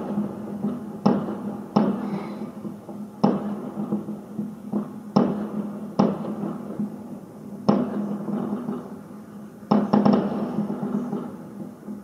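Aerial firework shells bursting: about eight sharp bangs at uneven intervals, each trailing off in a rolling echo, with a quick cluster of bangs about ten seconds in.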